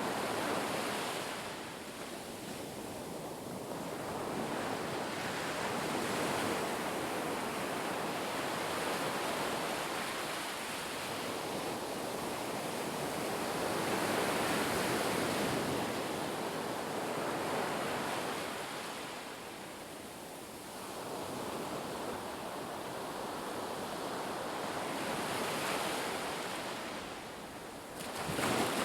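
Ocean waves breaking and washing up the shore, a steady rush that swells and ebbs every several seconds, with a sharper surge near the end.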